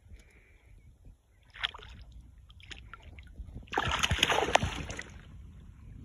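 Hooked lake trout thrashing at the surface beside a canoe, splashing water: a short splash about a second and a half in, then a louder burst of splashing lasting about a second and a half.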